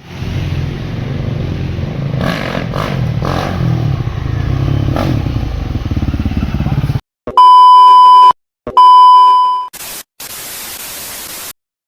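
Husqvarna enduro motorcycle engine running for about seven seconds, cutting off abruptly. Two loud, steady, long beeps follow, then two short bursts of hiss.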